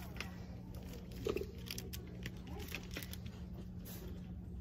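Quiet store room tone: a steady low hum with faint rustling and clicks from merchandise being handled, and a brief murmur of a voice about a second in.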